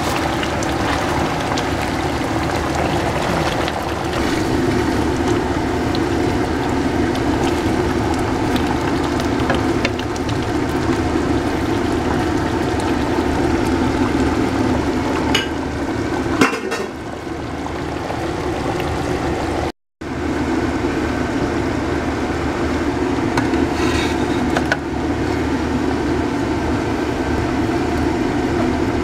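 Thick curry simmering and bubbling in a wok while a wooden spatula stirs it, with a few knocks of the spatula against the pan. A steady low hum runs underneath.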